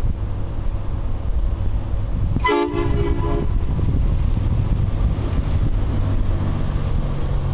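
Aftermarket three-trumpet air train horn, fed from an air-ride system, sounds one short blast of about a second: a chord of several tones together. A steady low rumble runs underneath.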